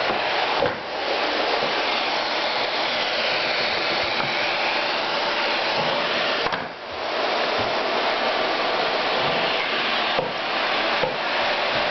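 Canister vacuum cleaner running with a steady whoosh as its floor nozzle is pushed over a wooden floor. The whoosh dips briefly twice, about a second in and a little past the middle, and a couple of light knocks come near the end.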